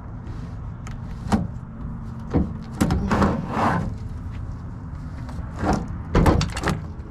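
Knocks, clatter and short scrapes of a TV's plastic and metal casing parts being pried and lifted apart by hand, in several separate bursts over a steady low rumble.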